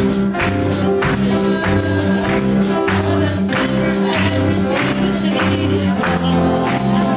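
Gospel music with a steady beat from a backing track, a woman singing over it into a microphone.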